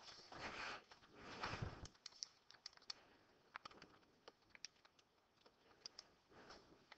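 Near-silent room tone with faint, irregular clicks of keys being tapped, after some soft noise in the first two seconds.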